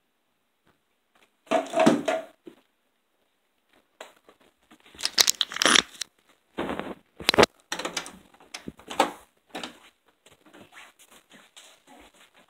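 Handling noise from the recording device being grabbed and moved: rustling, scraping and several sharp knocks from about four seconds in, thinning out near the end, after a short loud burst near two seconds.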